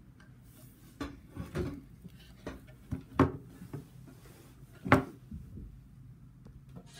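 A handful of knocks and bumps of things being handled and set down close to the microphone, the loudest about three seconds in and again about five seconds in, over a low steady hum.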